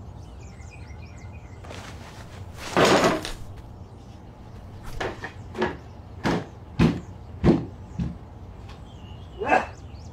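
Footsteps thudding on a wooden floor, about one step every half second or so, after a brief scuffing rustle about three seconds in, with faint bird chirps.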